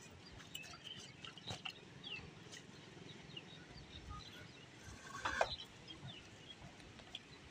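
Faint outdoor background with scattered small bird chirps and a few light knocks, and one louder brief sound about five seconds in.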